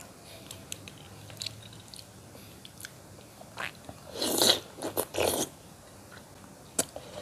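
Close-up eating sounds of curried fish head eaten by hand: small lip and tongue smacks, then about four seconds in a few loud sucking, slurping bursts as the meat is taken off the fingers.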